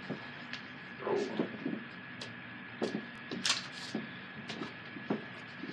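Someone moving about off-camera, fetching certificates: scattered clicks, knocks and rustles of things being handled, the sharpest about halfway through, over a faint steady high-pitched whine.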